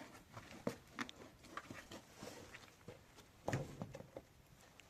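Scattered light knocks and rustles at irregular times, with a louder cluster of knocks about three and a half seconds in.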